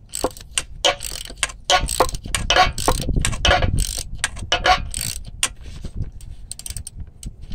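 Socket ratchet clicking in quick back-and-forth strokes as the bolt of the vacuum modulator hold-down bracket on a Turbo 400 transmission is tightened. The clicks thin out over the last two seconds as the bolt snugs down.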